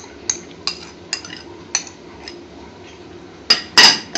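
A spoon clinking and tapping against a bowl and a stainless steel saucepan as peeled tomato is scraped out into the pan. A run of light clicks comes first, then two louder knocks near the end.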